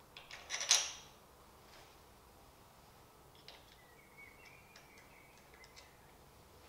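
Light metal clicks and a short scrape as a nut and bolt are fitted by hand through a wheel mounting bracket on a shower chair frame, loudest just under a second in, then a few small ticks and a faint thin squeak.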